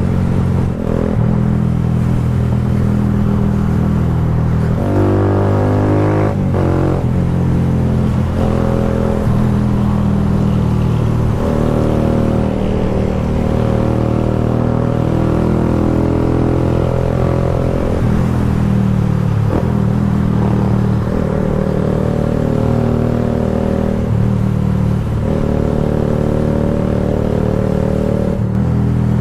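Kawasaki Rouser 180's single-cylinder four-stroke engine running through an Akrapovic slip-on muffler. The exhaust note rises and falls in pitch several times as the revs change.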